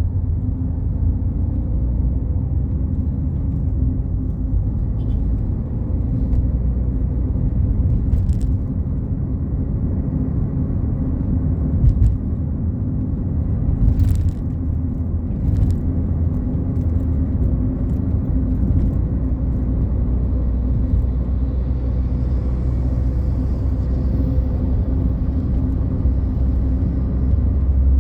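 Fiat Palio Fire driving at highway speed, heard from inside the cabin: a steady low rumble of engine and tyres on the road. A few brief knocks or ticks come through around the middle.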